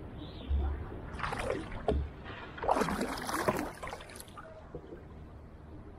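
A paddle swishing and splashing through water beside a small wooden canoe, two strokes, about one second in and about three seconds in. Two short low thumps come before and after the first stroke.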